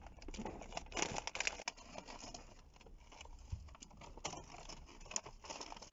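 Plastic snack bag crinkling and crackling in irregular clusters as it is tugged and handled in an effort to open it.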